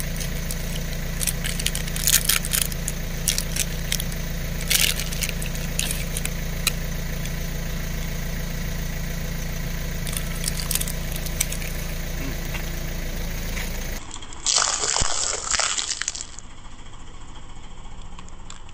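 Car engine idling steadily with scattered sharp clicks and crinkles close by. About fourteen seconds in the sound cuts, and a car tyre crushes crisp wafer ice-cream cones with a burst of crunching and crackling lasting about two seconds.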